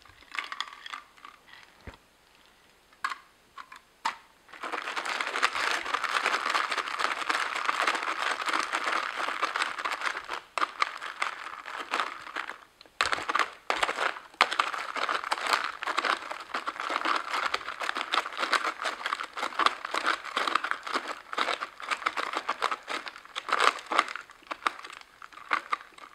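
Ice cubes being crushed in a countertop ice crusher: a few clicks of ice at first, then from about four seconds in a dense, continuous crunching and crackling of ice, with a short break about halfway through.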